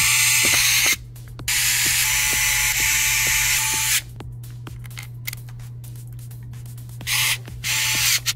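Electric precision screwdriver running in bursts, driving in the motherboard's small screws. It runs once until about a second in and again for about two and a half seconds, then goes quiet with light clicks. Two short bursts come near the end.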